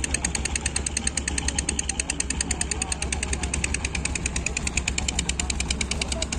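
Diesel engine running at a steady speed: an even, rapid clatter of about ten beats a second over a low drone.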